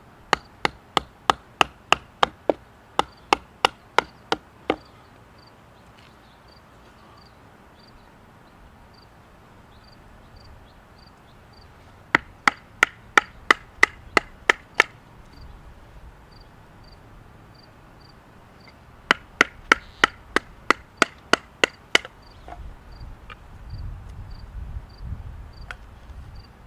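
A serrated Ontario Utilitac pocket knife being batoned through a stick of wood: three runs of sharp, evenly spaced knocks, about three a second, as the blade is driven through a knot.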